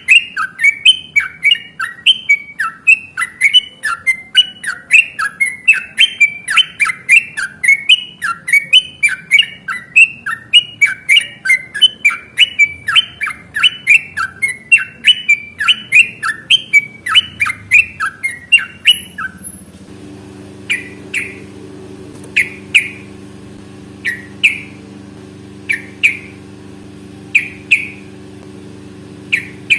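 Yellow-vented bulbul (trucukan) song in a long, fast run of sharp chattering notes, about three a second. About two-thirds through, the run breaks off and single call notes follow every second or two over a low steady hum.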